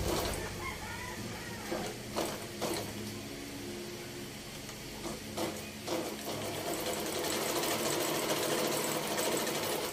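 Janome N3000 electric sewing machine running steadily as it stitches the reverse leg of a four-step buttonhole, with two pairs of short clicks about two and five and a half seconds in. It runs louder from about six seconds in.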